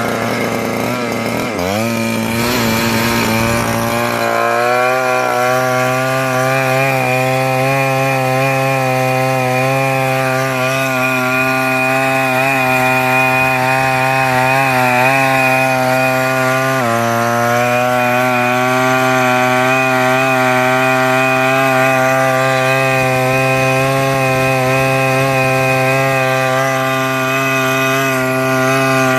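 Zenoah G240 small two-stroke engine running steadily at high speed, driving a brushless motor used as a generator under electrical load, with a governor holding its speed. The pitch dips sharply and recovers about two seconds in, then settles slightly lower a bit past halfway.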